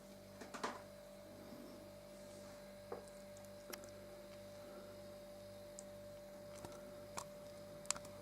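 A steady electrical hum with a few faint, scattered clicks and knocks at irregular intervals.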